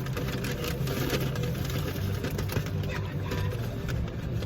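Car engine idling, heard from inside the cabin as a steady low hum, with scattered small clicks and rustles over it.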